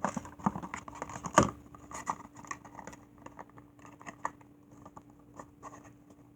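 A plastic action figure and its box being handled and fitted together: irregular clicks, taps and scrapes, busiest in the first few seconds, with one sharp knock about a second and a half in.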